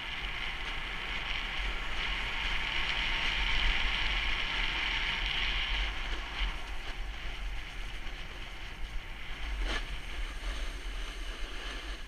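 Steady scraping hiss of a rider sliding down hard-packed groomed snow, loudest in the first half and easing after about six seconds, with wind rumbling on the action camera's microphone. A single sharp click near the end.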